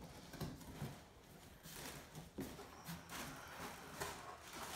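Cardboard box being opened by hand: flaps pulled apart and handled, with faint scattered scrapes, rustles and knocks.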